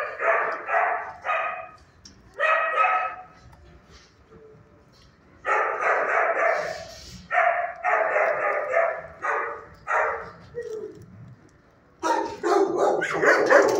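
Dog barking in bouts of several barks, with short pauses between bouts and a longer run of barking in the middle.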